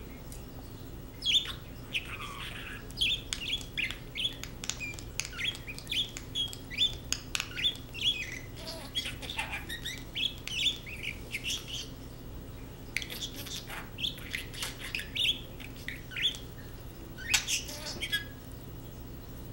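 Budgerigar chattering in quick short chirps and squeaks, pausing for about a second just after halfway, then a last few chirps near the end.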